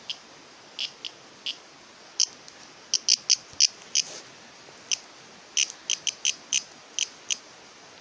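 Cicada giving short, sharp buzzy squawks in irregular bursts, some in quick runs of three or four: distress calls of a cicada seized by a praying mantis.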